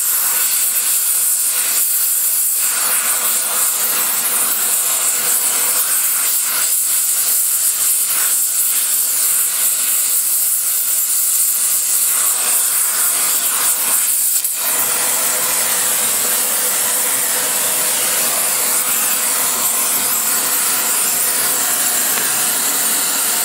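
Gas spray-welding torch flame hissing steadily while fusing a thin build-up of nickel weld onto a cast iron cylinder head. The hiss changes slightly about two-thirds of the way through.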